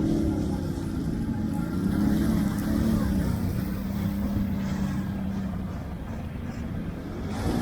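ATV engine revving in repeated swells, its pitch rising and falling, held steady for a couple of seconds in the middle, then easing off before revving up again near the end.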